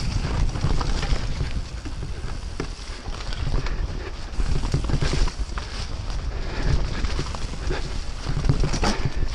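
Mountain bike ridden fast along a dirt single-track trail, heard from a camera mounted on the rider or bike: wind buffeting the microphone, a low rumble of tyres over the ground, and frequent irregular rattles and knocks as the bike goes over bumps.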